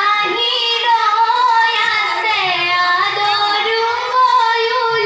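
Girls singing an Assamese biya naam (traditional wedding song) through microphones, in long held notes that slowly bend up and down.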